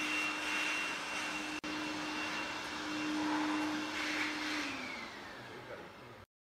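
Steady hum and whine of a workshop machine's motor, which winds down a little after four and a half seconds, its pitch falling as it fades. The sound cuts off suddenly near the end.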